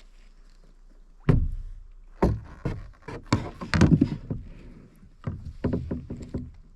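Kayak paddling: an irregular run of knocks and thumps as the paddle strikes the kayak's hull. The first comes about a second in and they come thickest around the middle.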